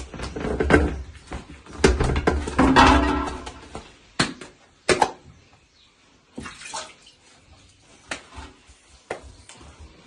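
Hands pressing and patting soft bread dough on a metal tray: a busy run of wet slaps and knocks for about the first four seconds, then only a few scattered clicks as the dough is lifted.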